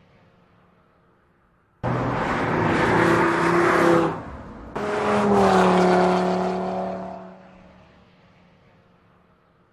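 Audi RS 3 Sportback's 2.5 TFSI turbocharged five-cylinder engine under hard acceleration, cutting in suddenly about two seconds in. It drops off briefly near the middle, then pulls again with the pitch easing down, and fades away.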